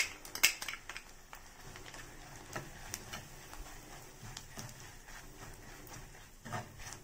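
A steel spoon stirring spice powders into hot oil in a clay pot, knocking and scraping against the pot, with a couple of sharp knocks at the start and scattered light clicks after. Under them the oil sizzles faintly.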